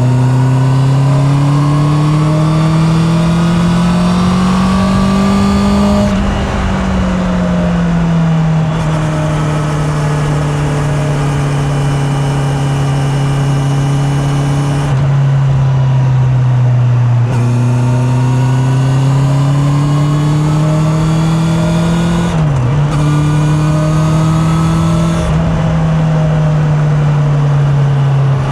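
Honda CB650R's inline-four engine pulling on the road, heard from a microphone in the rider's back pocket. The engine note climbs steadily under acceleration for about six seconds, eases back and holds, then drops and climbs again. A quick dip in pitch midway through that second climb marks a gear change, after which the engine settles into a steady cruise.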